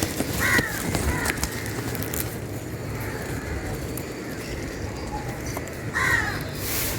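A bird calls twice, in short falling calls, about half a second in and again near the end. Over the first two seconds there are scratchy strokes of a broom sweeping the ground.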